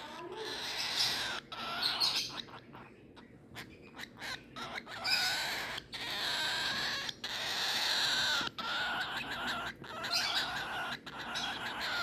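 Baby cockatiel calling with raspy, hissing calls in long stretches broken by short pauses.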